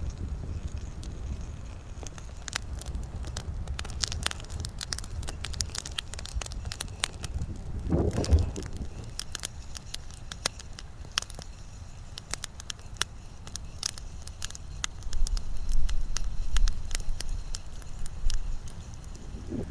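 Campfire crackling and popping in irregular sharp snaps, over a low rumble of wind on the microphone.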